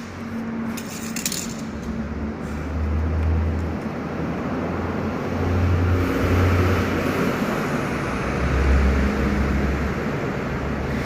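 Car on the move: steady road and tyre noise with an uneven low rumble, and light metallic clinking.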